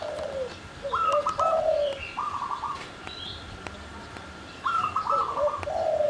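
Caged zebra dove (perkutut) and spotted dove (tekukur) cooing in repeated short stuttering phrases, with faint higher bird chirps between them.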